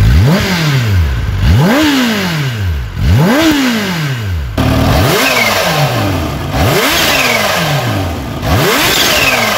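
Kawasaki Ninja ZX-10R inline-four engine revved in three sharp throttle blips, each rising quickly and falling back. About halfway through, a supercharged Kawasaki Ninja H2 is revved three times, and a thin falling whistle trails each blip.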